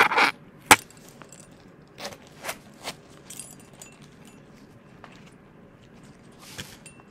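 A zip-around wallet being handled, with small metal clinks from its zip pull and contents: one sharp click under a second in, then three lighter taps a little later, then faint rustling.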